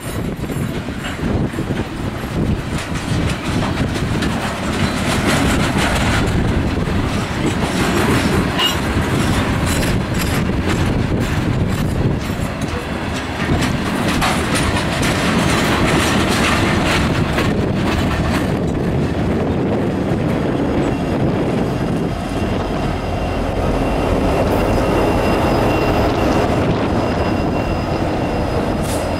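Freight train of rock-loaded side-dump cars rolling past, with a steady clatter of wheels on the rails and wheel squeal. In the second half a diesel locomotive comes by, its engine running under the wheel noise.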